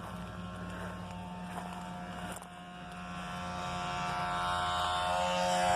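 Power sander running on the bus's body, a steady motor drone with a hum. It dips briefly about halfway through, then grows steadily louder.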